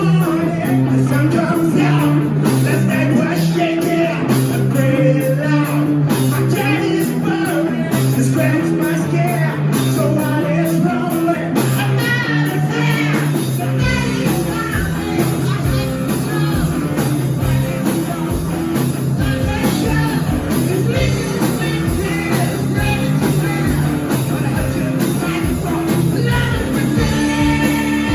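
Rock music with singing and guitar. A heavy bass line and a drum beat come in about halfway through.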